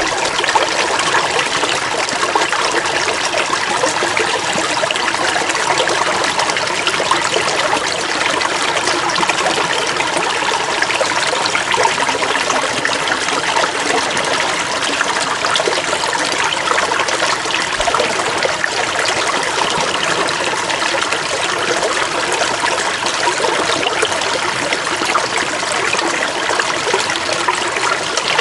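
Running water trickling and splashing steadily, with no change.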